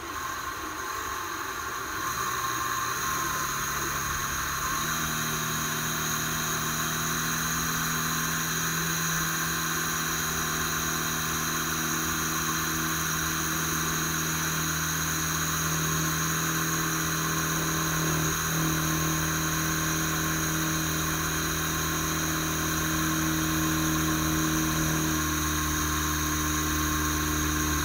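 Electric drill running steadily, spinning the wire to wrap a four-core alien clapton coil; its hum shifts in pitch a few times.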